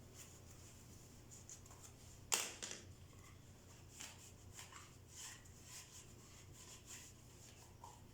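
Faint handling sounds: light rubbing and small clicks, with one sharper knock about two seconds in, over a low room hum.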